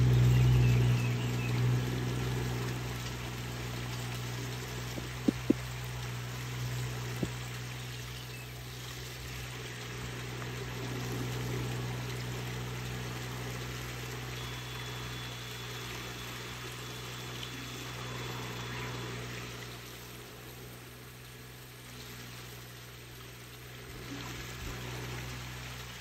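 Riding rice transplanter's engine running steadily as it plants a flooded paddy, loudest at first and easing off as it moves away, over a steady hiss of rain and water. A few sharp clicks come about five and seven seconds in.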